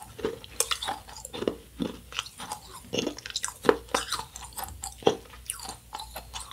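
A child chewing candy close to the microphone, with irregular wet mouth clicks and crunches, a few every second.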